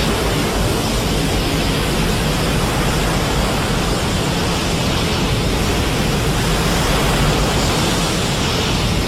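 Godzilla-film sound effect: a loud, steady rushing noise with a deep rumble underneath, holding even throughout and starting to fade out near the end.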